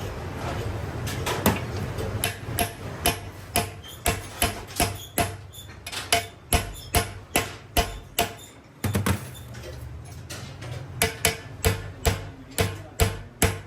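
Hammer blows on aluminium, about two a second, each with a short metallic ring. The blows pause briefly about two-thirds of the way through, then go on.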